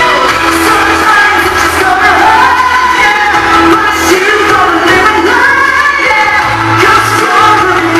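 Live pop singing into a handheld microphone over loud backing music, heard through the hall's PA.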